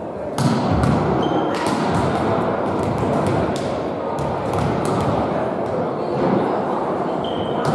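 Volleyballs being hit and bouncing on a wooden sports-hall floor: a string of sharp thumps, irregularly spaced, echoing in the large hall.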